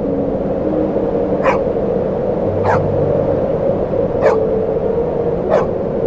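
A dog barking four times, single barks about a second and a half apart, over steady soft background music.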